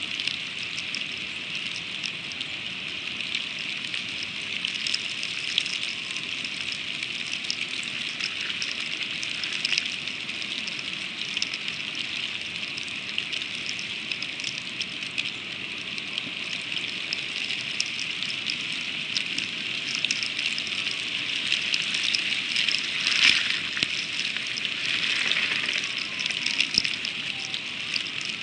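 Freezing rain pattering steadily on a snow-covered nest and the camera's microphone: a constant hiss dotted with many small ticks, a little heavier late on.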